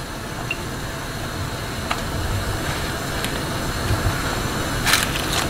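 Large stainless steel pot of pork backbones at a rolling boil: a steady bubbling hiss, with a few light clicks and a small cluster of sharper knocks near the end.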